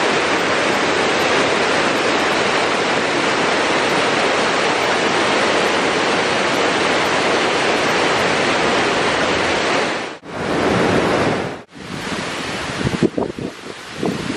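Waterfall, a steady, dense rush of falling water. About ten seconds in it cuts out twice very briefly. Then it drops to a quieter water sound broken by gusts of wind buffeting the microphone.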